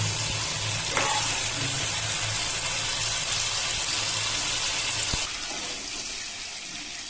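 Hot mustard oil sizzling in a kadai as mushroom pieces fry, a steady hiss. A light click comes about a second in, and near five seconds in a low hum stops and the sizzle drops quieter.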